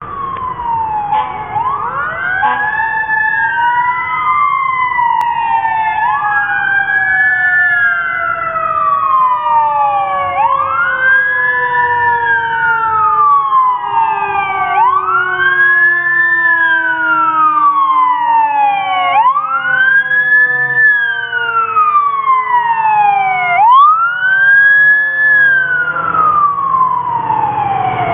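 Fire engine's siren wailing, each cycle rising quickly and falling slowly, about every four seconds, with a second siren tone sliding slowly down in pitch underneath and the truck's engine rumbling low.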